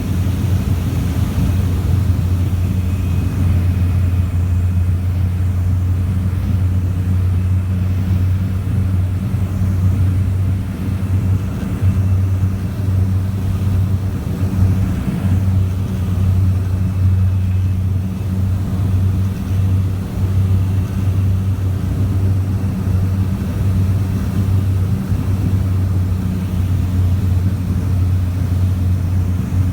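Twin Otter turboprop aircraft's engines and propellers droning steadily at a constant low pitch.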